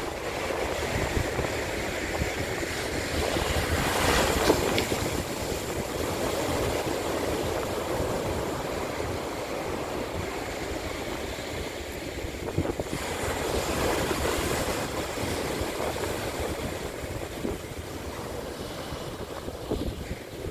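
Rough sea surf breaking and washing in over shoreline boulders, with wind buffeting the microphone. The surf swells louder about four seconds in and again for a couple of seconds around the middle.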